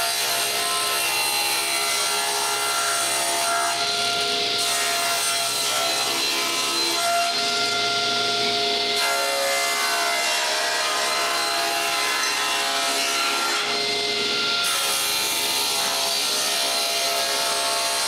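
Table saw running and cutting through plywood, a steady motor whine under the hiss of the blade in the wood. The cutting noise eases briefly three times, at about 4, 8 and 14 seconds in, between passes.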